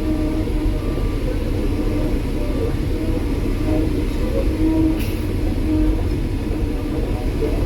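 Cat 312 hydraulic excavator travelling on its tracks: the diesel engine and track drive run with a steady low rumble, with short high notes repeating irregularly about every half second and a single sharp click about five seconds in.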